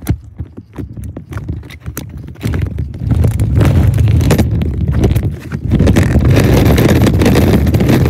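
Kick scooter wheels rolling over pavement: a run of clacks at first, then from about three seconds in a loud, steady rumble.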